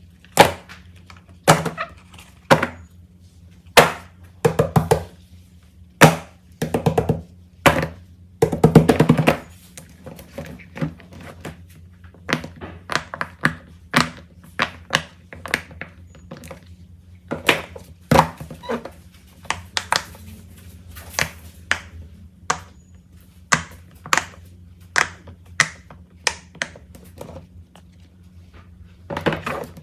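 Plastic fidget toys being handled and set down on a surface: irregular taps, clicks and thunks, with a quick rattling run of clicks about nine seconds in.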